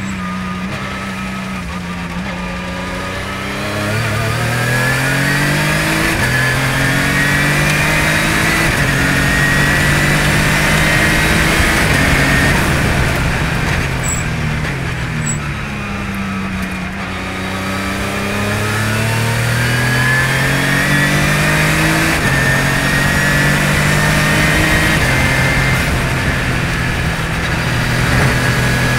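Radical RXC track car's engine heard from the open cockpit at speed, climbing in pitch gear by gear with quick upshifts. About halfway through the pitch slides down for a few seconds as the car slows, then climbs through the gears again, with steady wind and tyre noise underneath.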